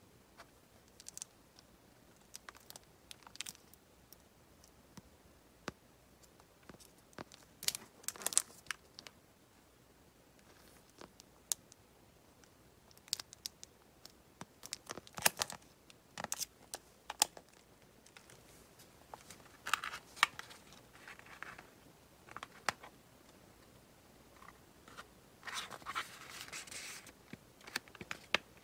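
Hands handling packaged chipboard sticker sheets and a paper embellishment pack: soft crinkles, scratches and light taps of card and packaging, coming in several short bursts between quieter stretches.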